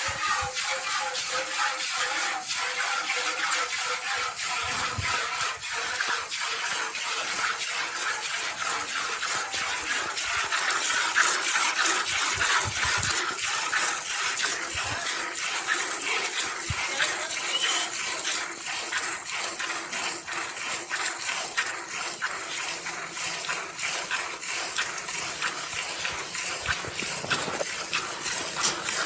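Milk squirting in quick, repeated streams into a pail as a Gir cow is milked, with a steady rush of liquid throughout.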